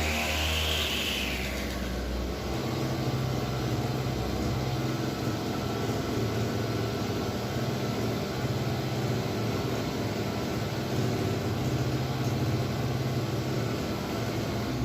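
Small petrol engine of a grass cutter (brush cutter) running steadily after a service that cured its refusal to start. A brief rise and fall in pitch in the first second or so, then an even, fluttering running note.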